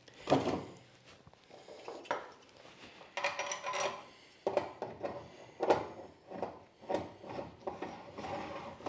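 Irregular metallic clinks and wooden knocks as the wooden front jaw of a Moxon vise is worked onto threaded steel rods and a washer and metal hand wheel are fitted to the rod end.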